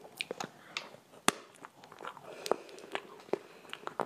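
Irregular sharp clicks and crackles from close-miked handling of a piping bag and a cream-topped novelty food shoe. The loudest click comes a little over a second in.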